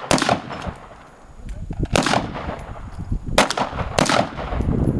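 Gunshots at an outdoor range: one right at the start, then three more, at about two seconds, three and a half and four. Each is a sharp crack followed by a rolling echo.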